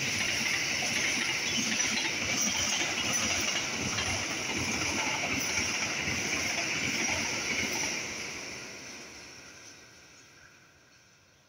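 Passenger coaches of the Argo Bromo Anggrek express train rolling past at speed: a steady noise of steel wheels on the rails, fading away from about eight seconds in as the train recedes.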